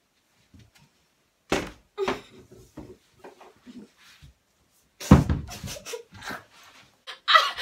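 A person in a headstand against a wall makes short muffled voice sounds, trying to sing a children's song with a mouthful of water, with a small thud about a second and a half in. About five seconds in, a loud thump as they come down from the headstand onto the floor, then more muffled voice sounds.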